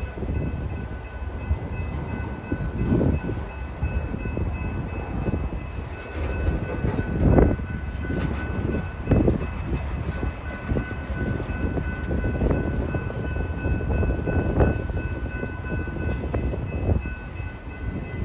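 Freight train of tank cars and covered hoppers rolling through a grade crossing: a steady rumble of wheels on rail, broken every few seconds by heavy thumps as wheels strike the crossing.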